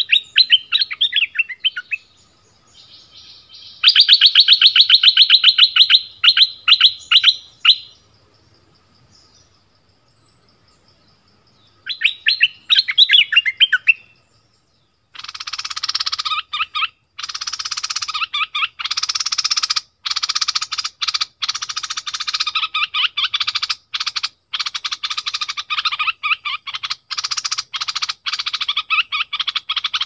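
Caged decoy bulbul (merbah lekir) singing. Short bursts of rapid repeated notes come at the start, at about 4 s and at about 12 s, and from about halfway the notes run on almost without a break.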